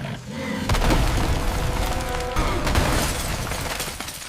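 Loud crashing, smashing sound effects over background music: one crash comes about a second in and another a little past two seconds, then they fade near the end.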